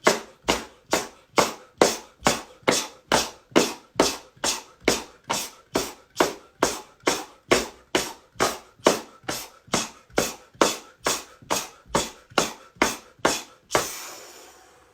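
Hands rhythmically banging the belly either side of the navel in qigong self-tapping: an even run of dull thumps, a little over two a second, that stops shortly before the end.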